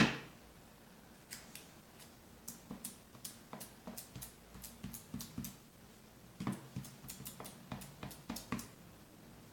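Light clicks and taps of a smartphone and its plastic screen-protector installation tray being handled, with one sharper knock right at the start.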